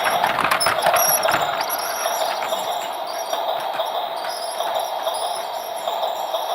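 Battery-powered toy train running, its small motor giving a steady whine, with rapid clicking and rattling for about the first second and a half before it runs smoother.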